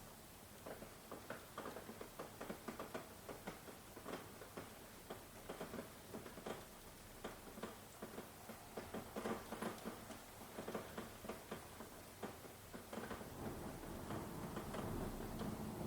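Rain with drops ticking and pattering irregularly on a hard surface. A low rumble of thunder starts to build in the last few seconds.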